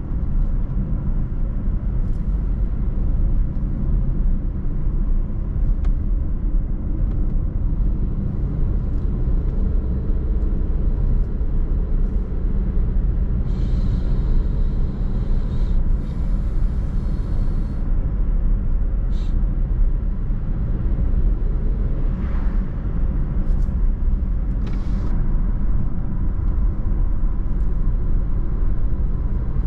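A car driving on a road: steady low engine and tyre rumble, with a short burst of hiss around the middle.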